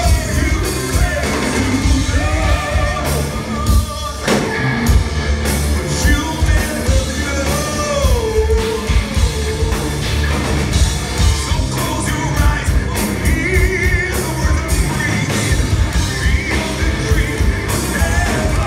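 Progressive metal band playing live over a concert PA: a male singer's held vocal lines with vibrato over drums, bass, guitars and keyboards, heard from within the audience.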